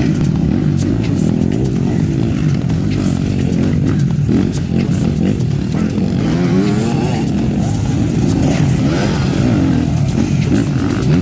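Several enduro dirt-bike engines running and revving together as riders pass on a sandy track, their pitches rising and falling over one another.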